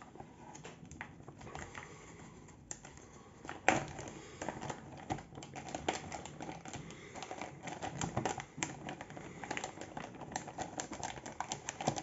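Resealable plastic zip bag being opened and handled: a run of small clicks and crinkles from the plastic and its press seal as a cardboard box is slid out, with one louder knock about four seconds in.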